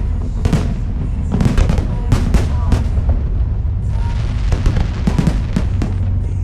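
Aerial fireworks bursting in quick succession: many sharp bangs and crackles, in clusters, over a constant low rumble.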